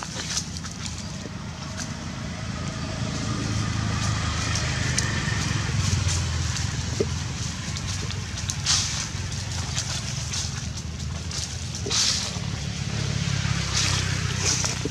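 Footsteps crunching and crackling on dry fallen leaves, with a few sharper crackles near the middle and about twelve seconds in, over a low steady rumble.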